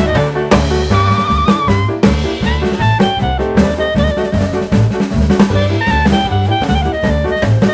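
Background music: instrumental jazz with drum kit, bass and a saxophone or brass line.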